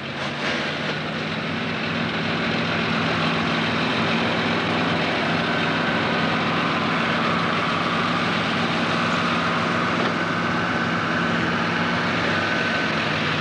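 Heavy diesel tractor engine running steadily, louder over the first two seconds and then holding, with a faint higher whine above it.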